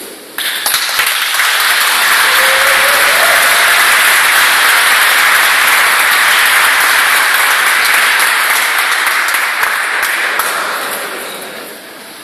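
A crowd of wedding guests applauding. It breaks out suddenly about half a second in, holds steady, then dies away near the end.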